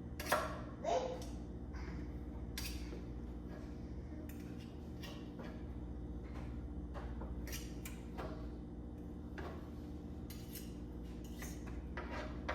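Kitchen utensils clinking and knocking against dishes and a pot: scattered sharp taps every second or so, two louder ones in the first second, over a steady low hum.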